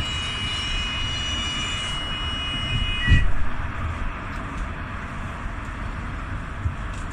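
City traffic heard from underneath a bridge: a steady rumble of passing vehicles. For the first three seconds a high squeal of several steady tones sits over it, cut off by a heavy thump about three seconds in.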